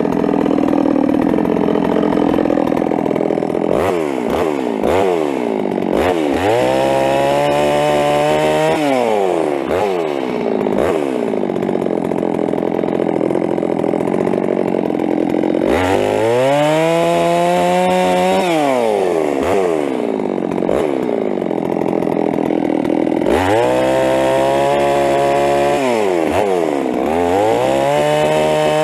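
Ported Stihl MS 660 two-stroke chainsaw bucking thin limbs. It is revved up to full throttle again and again, holding high for a few seconds at a time, then dropping back to idle between cuts.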